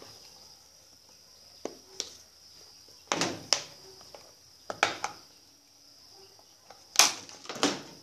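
Plastic casing of a washing-machine control board being pried open by fingernail: scattered clicks, snaps and scrapes, the loudest about halfway through and near the end. A faint steady high whine runs underneath.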